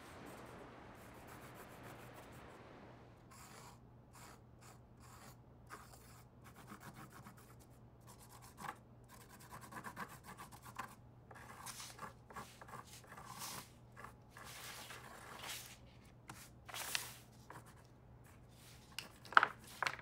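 Crayon rubbing and scratching on paper in quick, irregular strokes, with a couple of sharper strokes near the end. A soft wash of sea surf fades out in the first few seconds.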